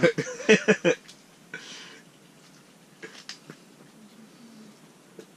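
A man's voice for about a second, then a quiet stretch with a short hiss and a few faint clicks.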